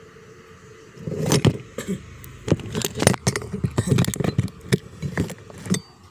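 Hands working on a cordless circular saw, with an irregular clatter of clicks, knocks and scrapes starting about a second in. There is no motor running.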